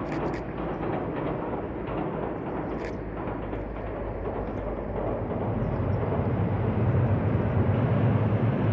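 Distant KuMoYa 443 electric inspection car rumbling across a steel river bridge. It is a steady rumble that swells louder and deeper in the second half.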